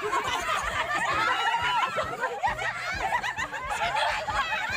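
A crowd of people laughing and calling out all at once, many overlapping voices.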